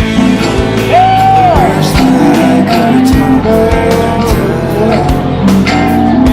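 Rock music with a steady drum beat and guitar, a bent melody note about a second in.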